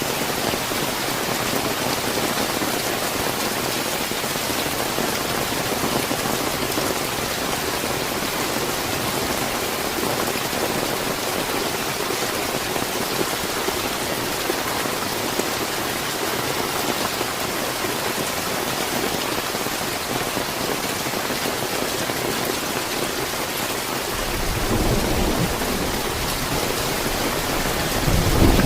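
Steady heavy rain, a dense even hiss of drops hitting surfaces. Near the end a deep rumble of thunder comes in and swells.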